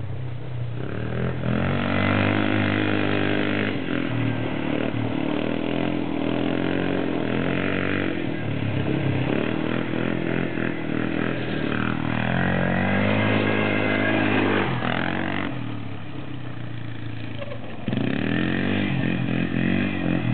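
Polaris Trail Blazer ATV engine revving up and easing off again and again as the quad is ridden around. It drops to a lower, quieter running about three-quarters of the way through, then picks up sharply again near the end.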